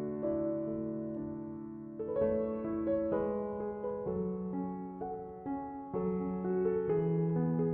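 Background music: a gentle electric piano melody over sustained bass notes, the notes changing about every half second.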